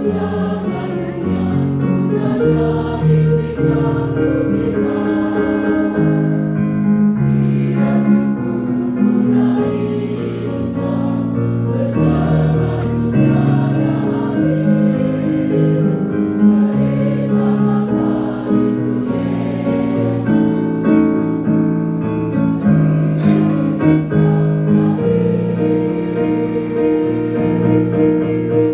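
Mixed choir singing in parts, holding long chords that change every second or two.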